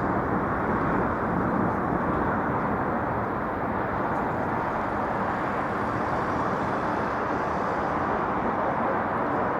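A car driving, with a steady rumble of road and engine noise and no bangs or breaks.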